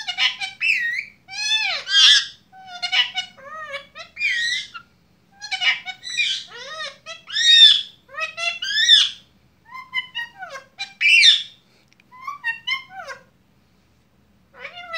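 Lutino Indian ringneck parakeet chattering: a string of short whistles, warbles and squawks that sweep up and down in pitch, with brief pauses between phrases.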